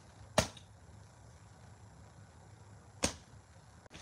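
Two quick whoosh sound effects, one shortly after the start and one about two and a half seconds later, over faint room tone.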